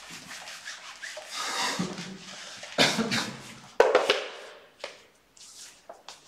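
Whiteboard eraser wiping across a whiteboard in scrubbing strokes, with a single sharp knock a little before four seconds in; after that only faint ticks.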